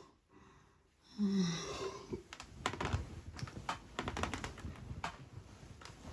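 A short low vocal sound from a person in bed, then several seconds of irregular clicks and rustling.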